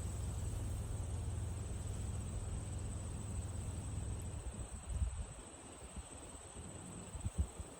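Insects chirping in a steady, high-pitched trill, over wind in tall prairie grass. The wind's low rumble is strong at first, eases about five seconds in, and leaves a few brief gusts near the end.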